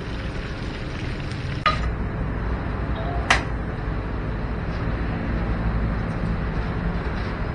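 Steady hiss of food frying in hot oil over a low hum, with two sharp clicks, the louder about three seconds in.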